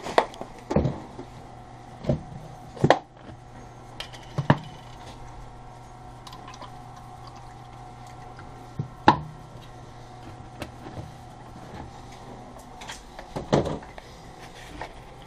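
Orange juice poured from a plastic jug into a cup, amid sharp knocks and clunks as the jug and fridge door are handled, the loudest about nine seconds in. A steady hum runs underneath.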